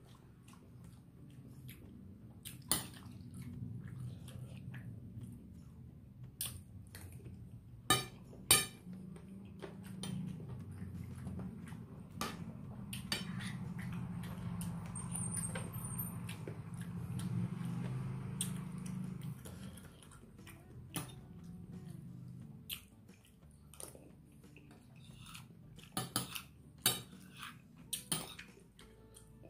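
Metal spoon scraping and clinking against a plate of rice as it is scooped up, a few sharp clinks standing out about eight seconds in and near the end, with chewing in between.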